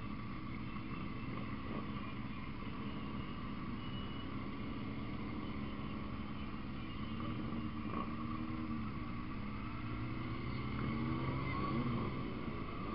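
Motorcycle engines running at low speed, their pitch rising and falling several times in the second half as the throttle is opened and eased off.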